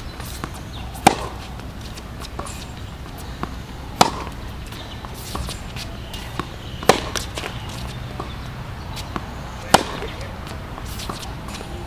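Tennis balls struck by rackets in a baseline rally on a hard court: a sharp hit about every three seconds, with softer ball bounces between the hits.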